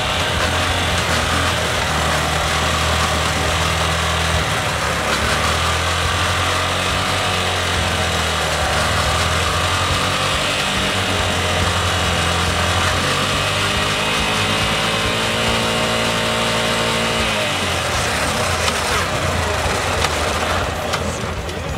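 Yamaha YBR 125's single-cylinder four-stroke engine running with the rear wheel spinning in gear off the ground. The engine speed rises and falls through the middle, and the deep low note drops away near the end.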